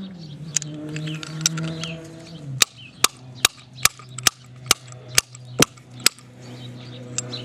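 Hammer strikes driving out a stuck part of a Briggs & Stratton Quantum engine: about nine sharp taps, a little over two a second, starting about two and a half seconds in, after a couple of lighter taps.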